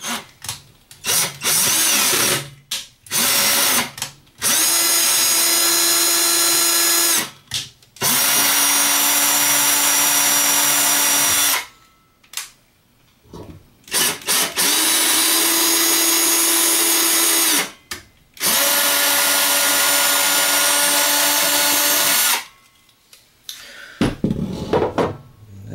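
Cordless drill driving a tap to cut M3 threads in holes in a metal enclosure panel. It runs in bursts: a few short spurts, then four longer runs of about three to four seconds each with a steady whine, stopping between them.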